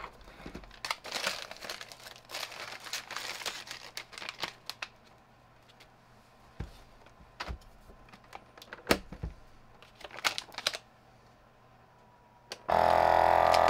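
Plastic vacuum-sealer bag crinkling and rustling as it is fitted into a Nesco vacuum sealer, with a few sharp clicks as the lid is pressed shut. About a second before the end, the sealer's vacuum pump starts with a loud steady hum.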